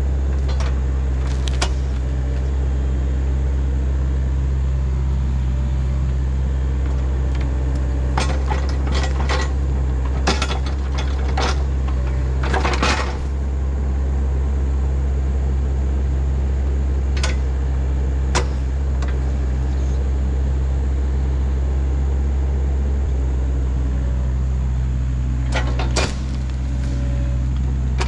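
Volvo EC35C mini excavator's diesel engine running steadily under work, with scattered sharp metallic clanks and knocks as it digs. The clanks come in a burst in the middle and again a few times later.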